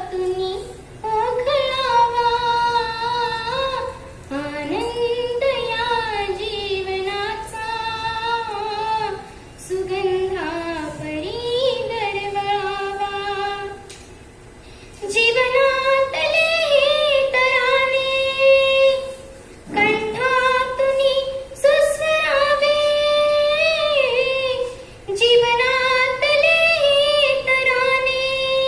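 A young girl singing a Marathi song solo, with no audible accompaniment. She sings phrases of long held, ornamented notes, each a few seconds long, with short breaks for breath between them.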